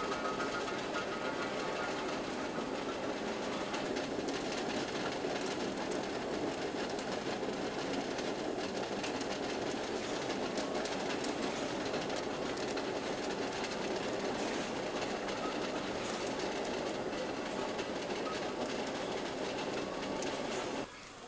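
Roller conveyor of an egg-handling line running, its rods turning and eggs rolling and clicking against them in a steady, dense rattle. The rattle drops away suddenly near the end.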